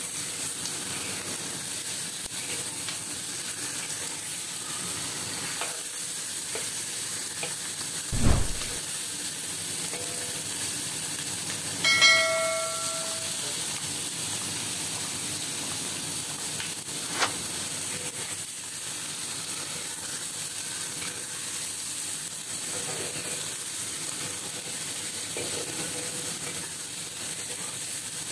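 Chicken pieces sizzling steadily in hot oil in a wok as they are stirred with a metal ladle. A dull thump about eight seconds in, a single metallic ring a few seconds later and a sharp click near the middle.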